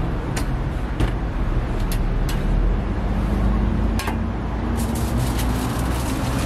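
Steady low rumble of street traffic; from about five seconds in, aluminium foil crinkles and crackles as it is folded around a toast sandwich.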